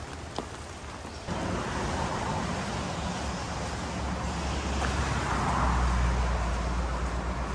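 Highway traffic: a steady rushing roar with a deep rumble that starts abruptly about a second in and swells in the middle as a vehicle passes close.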